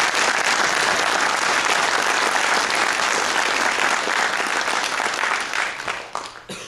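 Audience applauding, dense clapping that tapers off near the end.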